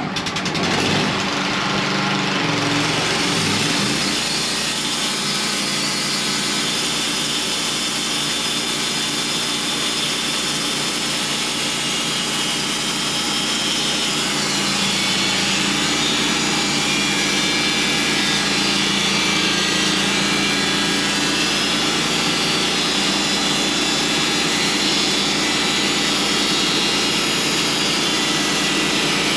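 Portable sawmill running: its engine revs up over the first few seconds, then holds a steady high speed as the saw blade cuts through a black walnut log.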